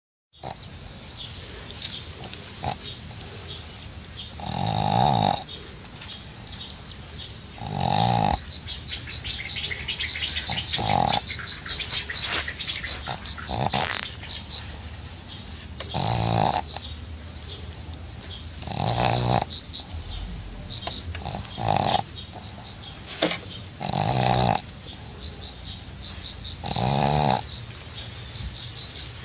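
Pug snoring in its sleep: a loud, pig-like snore about every three seconds, with fainter sound between them.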